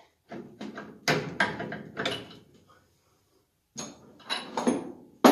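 Metal clunks and scrapes as the flywheel of a vintage Ski-Doo Rotax engine is pulled off the crankshaft and set down, so the breaker points can be reached. The clatter comes in two bouts with a pause of about a second between them, and ends on a sharp knock.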